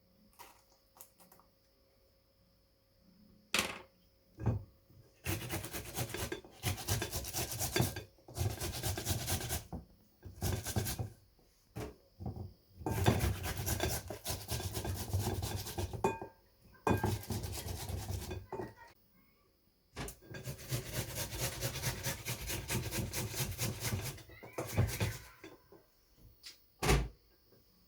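A tomato being grated by hand on a grater: runs of quick rasping strokes with short pauses between, and a couple of single knocks.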